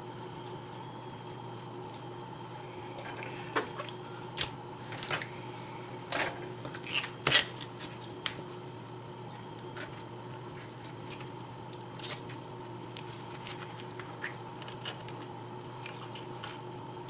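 Small Byrd Finch folding knife cutting raw chicken breast into chunks: soft wet squelching cuts and light taps of the blade on the board, busiest in the first half and sparser later, over a steady low hum.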